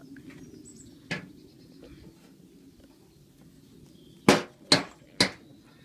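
Three sharp bangs in quick succession, something hard striking the derelict Bedford truck, after a single fainter knock about a second in.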